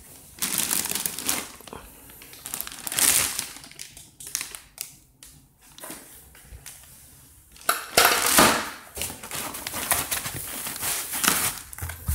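Clear plastic wrapping crinkling and rustling as hands pull and grab at it, in irregular bursts, the loudest about three seconds in and again near eight seconds.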